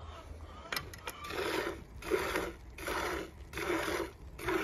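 A goat being milked by hand: milk squirts into a plastic bucket already holding foamy milk, in a regular rhythm of about one squirt every 0.7 seconds. The squirting starts a little over a second in, after a couple of light clicks.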